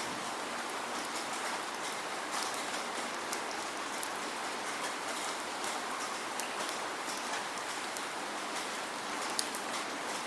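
Steady rain with no thunder: a constant hiss of rainfall, with the sharper ticks of single drops striking a surface scattered through it.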